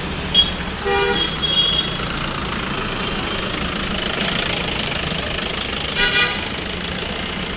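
Steady road traffic with two short vehicle horn honks, one about a second in and a higher-pitched one near the end.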